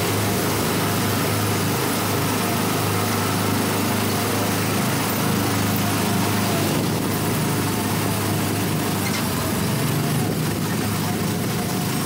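Small gasoline engine of an Autopia ride car running steadily as the car drives along the track.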